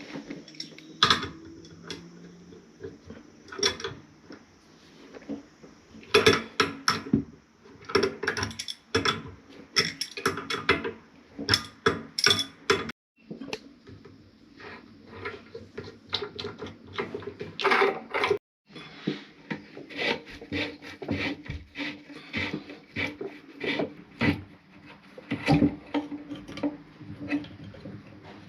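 Irregular knocks, clinks and scraping of hard parts and tools being handled, typical of hands-on work taking apart a toilet tank and bowl joint.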